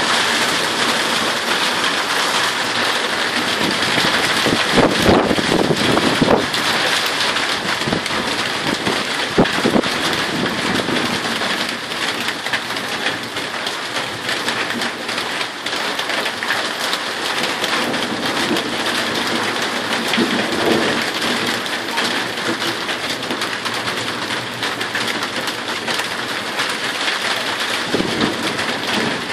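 Heavy rain falling steadily during a thunderstorm, with rumbles of thunder, the strongest about five to seven seconds in and a brief one near ten seconds.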